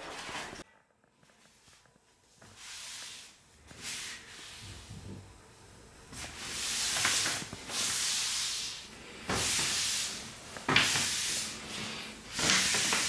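A towel wiping a wet waterproof paper map, five long rubbing strokes in the second half, each a brief hissing swish.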